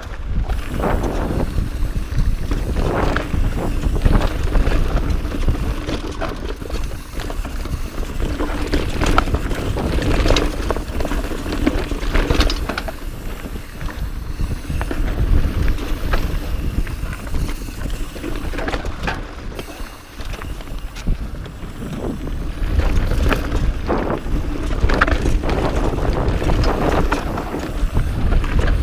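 Mountain bike riding over rocky dirt singletrack: wind rumbling on the microphone and tyres rolling over dirt, with frequent sharp knocks and rattles as the bike hits rocks.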